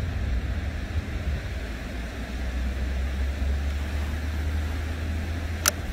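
Steady low rumble and hiss of outdoor background noise by open water, with one short, sharp ringing click about five and a half seconds in.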